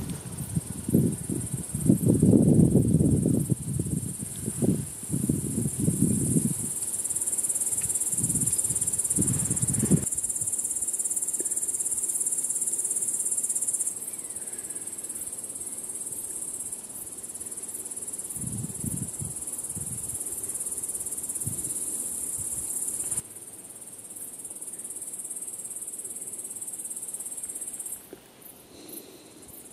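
Crickets chirring steadily in a high, even band. During the first ten seconds this is broken by loud, deep, irregular bursts lasting up to a couple of seconds each, with a few fainter ones later. The level drops abruptly a few times.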